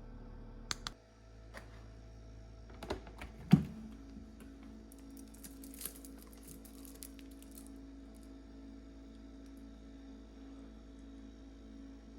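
Several sharp clicks and knocks, the loudest about three and a half seconds in, after which a steady low hum sets in.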